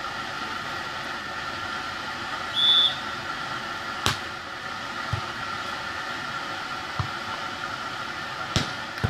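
Beach volleyball rally sounds: a referee's whistle gives one short blast about two and a half seconds in, and a sharp slap of a hand on the ball follows a second or so later. Two softer thuds of ball contacts come next, then a hard spike slap near the end, over a steady outdoor hiss.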